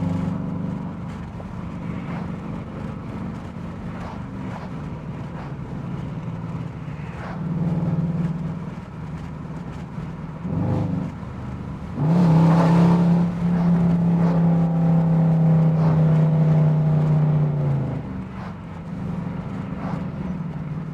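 Dodge Durango R/T's V8 engine and exhaust accelerating through paddle-shifted gears, the note climbing and dropping with each shift. About twelve seconds in it opens up suddenly and loudly and holds a strong steady drone for several seconds before easing off.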